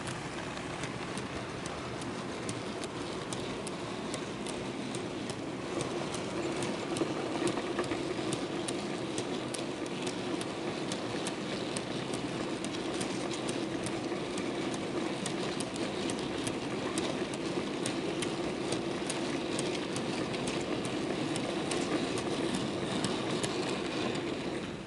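Model steam-hauled train of empty mineral wagons rolling slowly past: a steady running hum with regular clicking of wheels over rail joints, about two clicks a second.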